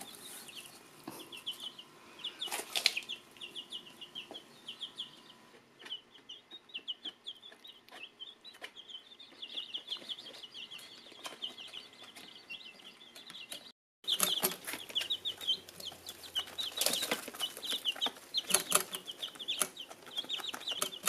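A brood of young chicks peeping, many short high cheeps overlapping in quick succession, with scattered small clicks. There is a brief break about 14 seconds in, and the peeping is louder after it.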